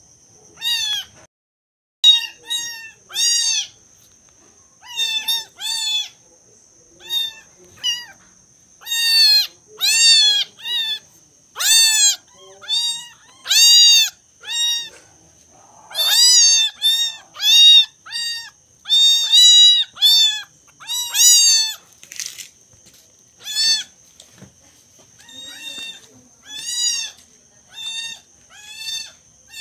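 Young kittens mewing over and over: short, high-pitched cries that rise and fall in pitch, one or two a second, over a steady thin high-pitched hum.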